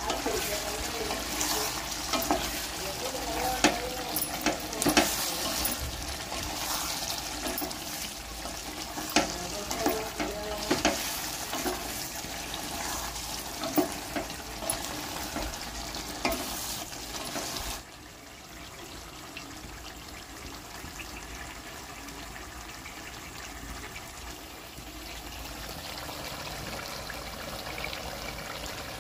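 Chicken sizzling in a pan while it is stirred, with clinks and scrapes of the utensil against the pan. About eighteen seconds in it cuts to a quieter, steady hiss.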